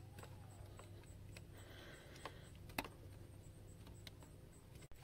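A few faint clicks and taps of a small hand tool and fingers working a plastic wiring connector, the clearest a little under three seconds in, over a low steady hum.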